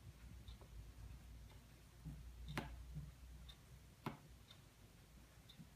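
Near silence: a dry-erase marker writing on a whiteboard, with two sharper clicks about 2.5 and 4 seconds in, and a faint tick about once a second.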